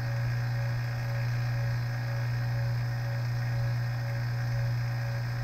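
Hilmor HVAC vacuum pump running steadily on fresh oil with a low, even hum and a faint higher tone above it, evacuating a system at deep vacuum, near 50 microns and still short of its rated 25 microns.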